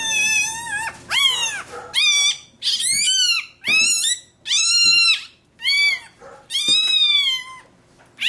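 Newborn Rottweiler puppy crying in a quick series of high-pitched wails, about eight in all, each rising and then falling in pitch, while its tail is being docked with scissors.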